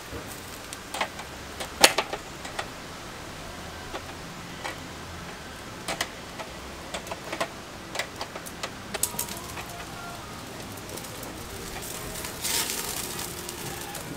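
Steady rain hiss with irregular sharp pops and ticks, the loudest about two seconds in, and a short swell of brighter hiss near the end.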